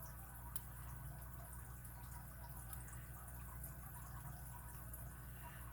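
Faint, scattered ticks of a lock pick and tensioner working the pin stack inside an Abus 41/45 padlock, over a steady low hum.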